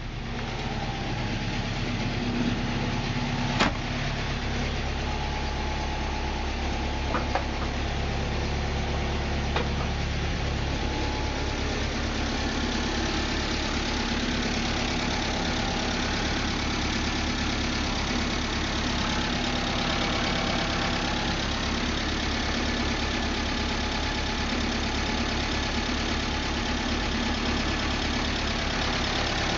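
UAZ-3153's UMZ-417 four-cylinder petrol engine idling steadily while it warms up after a cold start. There is one sharp knock about four seconds in, with a couple of lighter clicks soon after.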